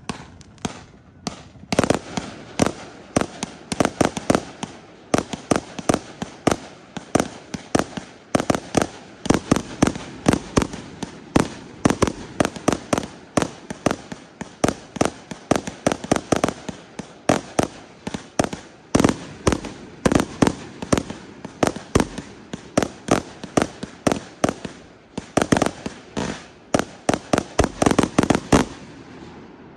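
Fireworks going off in a rapid, continuous barrage of sharp bangs, about three or four a second, as shots launch from the ground and burst overhead. The barrage starts about two seconds in and stops just before the end.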